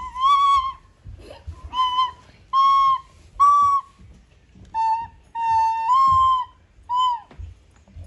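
Soprano recorder played in a halting run of about eight short, separate notes with gaps between them. Most are on the same high pitch, and a few are slightly lower.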